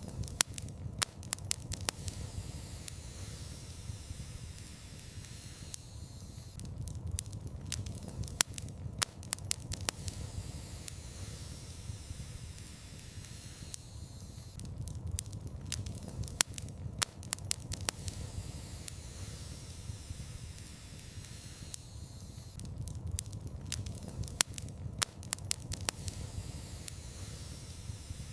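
Wood fire burning in a fireplace: a steady low rumble of flames with sharp crackles and pops that come in clusters every eight seconds or so.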